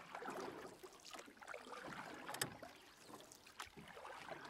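Pool water splashing and lapping as a miniature dachshund paddles through it, with one sharp click about two and a half seconds in.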